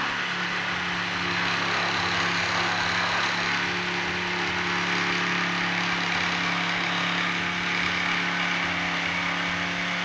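XCORT XMQ01-65 electric jigsaw running steadily at a middle speed setting, its reciprocating blade sawing through a small piece of wood: a constant motor hum under an even rasping buzz.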